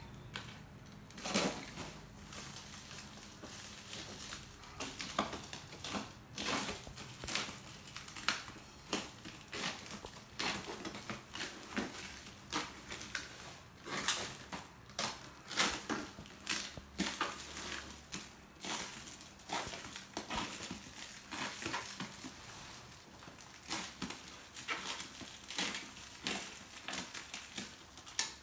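Packaging of an air rifle being opened and handled by hand: irregular crinkling, rustling and light knocks.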